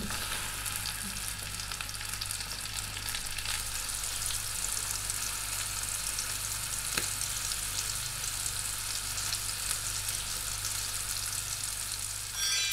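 Beef fillet sizzling steadily as it sears in a hot frying pan, with a single sharp click about seven seconds in.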